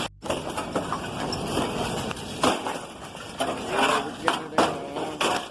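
Scattered knocks and clanks of scrap metal being handled, about half a dozen sharp hits, with a few muffled voices in the background.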